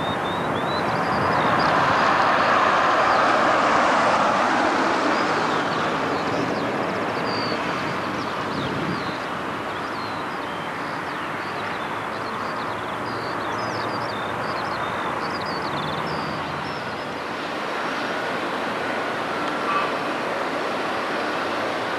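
Outdoor ambience picked up by a camcorder's built-in microphone: a steady rushing noise that swells over the first few seconds and then eases. Small birds chirp over it, and there is one brief click near the end.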